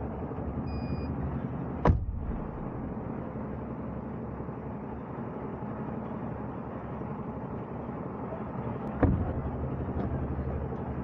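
Camper van's engine running with steady vehicle noise, broken by two sharp knocks, one about two seconds in and one near the end.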